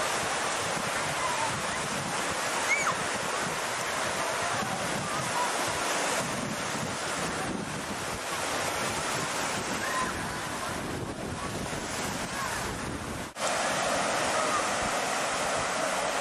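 Wave-pool waves washing in and breaking over shallow water, a steady rushing, with wind buffeting the microphone and faint distant children's shrieks.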